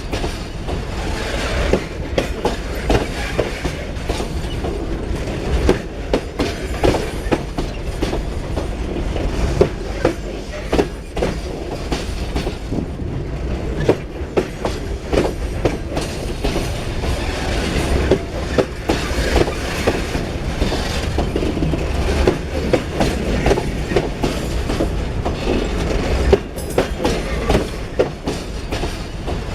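Loaded freight wagons rolling past steadily, their wheels clacking over the rail joints in an uneven stream of clicks over a continuous rumble, with touches of wheel squeal.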